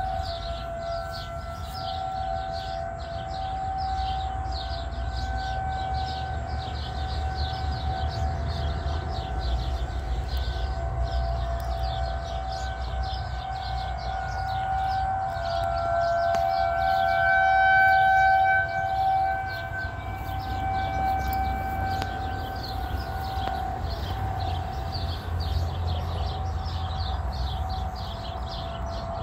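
Federal Signal 2001-SRNB-130 rotating outdoor warning siren sounding a steady wail. Its loudness swells and fades as the head turns, loudest about two-thirds of the way through. It is sounding for a severe thunderstorm warning.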